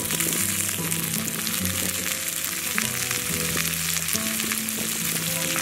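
Chopped greens frying in hot oil in a cast-iron pan over charcoal: a steady, dense sizzle with many small crackles and pops.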